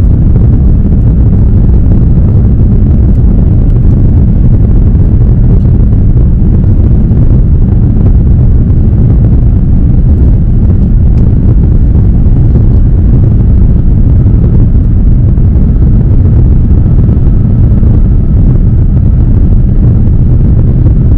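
Jet airliner cabin noise at low altitude over the city, likely during the climb after takeoff: a loud, steady, low rumble of engines and rushing air that does not change.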